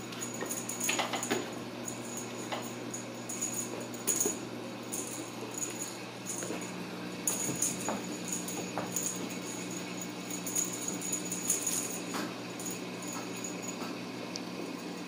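A small jingle bell on a cat toy jingling in short irregular bursts as kittens bat it about, with a few light clicks, over a steady low hum.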